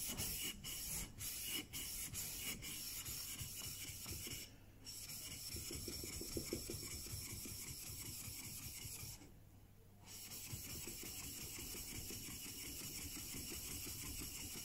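The flat steel back of a chisel is rubbed back and forth on the wet 8000-grit side of a double-sided waterstone, lapping it flat. It makes a steady, fairly quiet wet scraping that pauses briefly twice.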